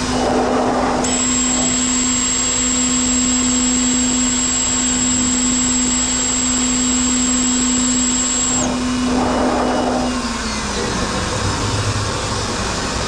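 CNC router cutting 1/8-inch polycarbonate sheet: a steady spindle hum over a rushing machine noise, with a high whine that starts about a second in and stops suddenly near the end. About ten seconds in, the spindle hum drops in pitch and fades as the spindle winds down at the end of the cut.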